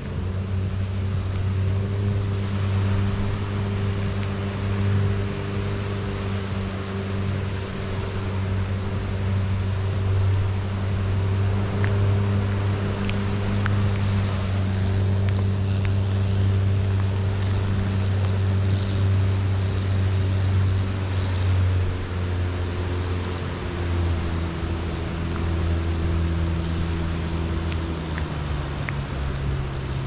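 A boat engine drones steadily offshore, its pitch dropping a little twice near the end as it slows, over small waves washing on the sand.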